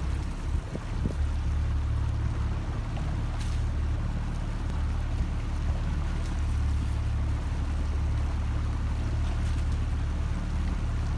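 Small motorboat engine running at a steady low hum, with water and wind noise around it.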